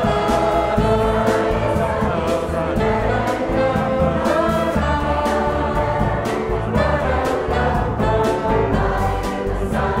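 Mixed choir singing with a jazz quintet: piano, trombone, alto sax, upright bass and drums. Cymbal and drum strokes run through the sung chords.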